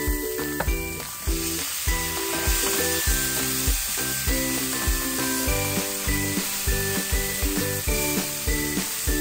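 Sliced mushrooms sizzling as they fry in a grill pan on a gas burner, stirred with a spatula. Background music with a steady beat plays throughout.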